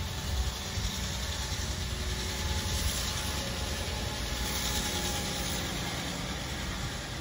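Rear-loading garbage truck's engine running at idle as the truck goes by, a steady low rumble that swells a little in the middle as it comes closest.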